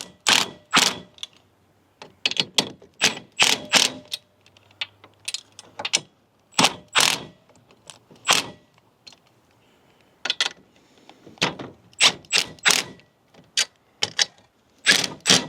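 Hand ratchet wrench tightening the nuts on steel U-bolts: short bursts of sharp clicks, one burst per swing of the handle, coming at uneven intervals with short pauses between.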